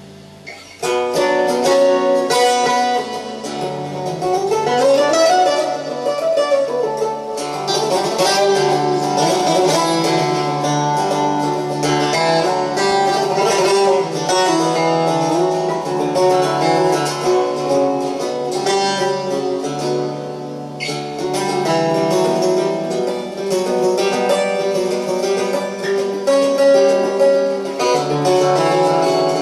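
Bulgarian tambura played solo: a fast picked folk melody over steady low drone notes, starting about a second in, with a quick run up and back down a few seconds later.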